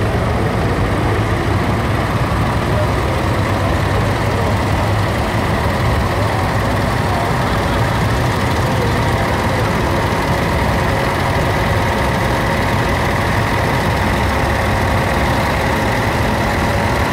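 Several tractor engines running at low revs as a line of tractors rolls slowly past, a steady, unbroken engine drone with no let-up.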